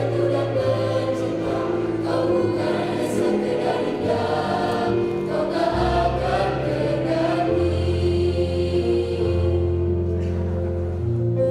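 A mixed choir singing a slow piece in held chords over sustained low bass notes, the low notes changing about six seconds in.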